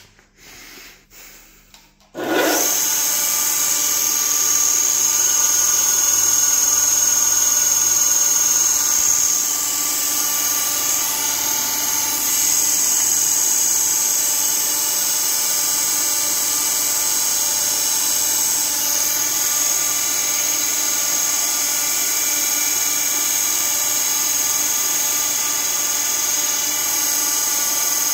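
A THÖRN T2 tool and cutter grinder's electric motor switches on about two seconds in and runs steadily, with a strong high whine over a mechanical hum. A few light knocks come just before it starts.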